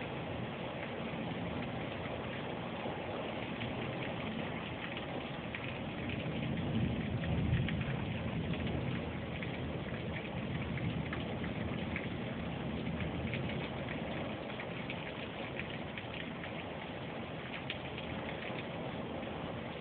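Rain falling steadily during a thunderstorm, with a low rumble of thunder that builds and fades about six to nine seconds in.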